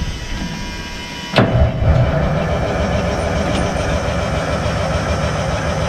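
1974 White Road Boss's 8V71 two-stroke Detroit Diesel being started: a steady whine, then the engine catches with a sudden loud burst about a second and a half in and settles into a steady, fast low rumble as it runs.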